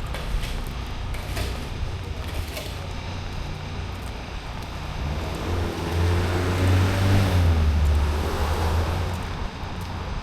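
A car passes on the street: its engine and tyre noise swell from about five seconds in, peak around seven seconds, then fade, over a steady low traffic hum. A few faint clicks come in the first three seconds.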